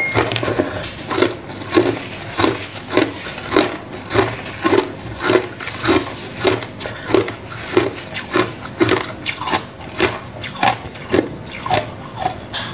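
Hard clear ice being bitten and chewed: a steady run of crisp crunches, nearly two a second.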